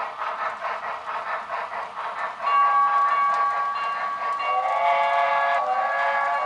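Locomotive sound on a model railroad: a fast, even running beat, then from about two and a half seconds in a loud, held multi-note chime whistle, with a second, lower chord joining about two seconds later.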